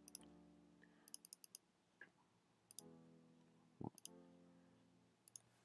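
Three faint piano chords from a HALion Sonic SE piano sound in Cubase, each ringing and fading, sounded as chords are picked in the chord editor. Light mouse clicks come between them.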